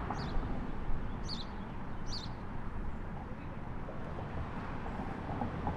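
A small bird chirping three short high notes in the first two and a half seconds, over a steady low outdoor rumble.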